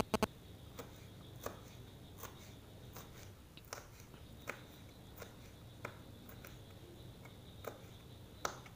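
Kitchen knife slicing red chillies on a plastic cutting board: light, sharp taps of the blade on the board, a little under one a second and slightly irregular.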